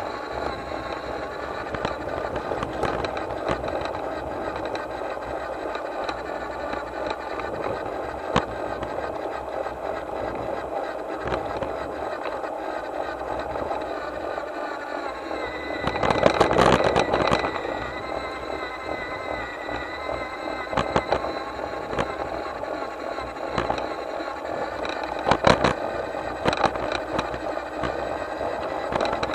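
Garden-railway locomotive running along its track: a steady mechanical running rattle of wheels on rails, with scattered sharp clicks and a louder noisy burst about sixteen seconds in.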